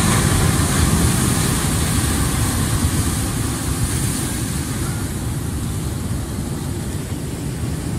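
Steady rumble of ocean surf breaking on a reef and wind buffeting the microphone, with no clear tone in it, easing slightly toward the end.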